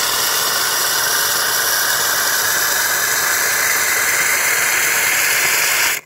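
Commercial espresso machine's steam wand hissing steadily, its tone slowly rising, then cutting off abruptly at the end.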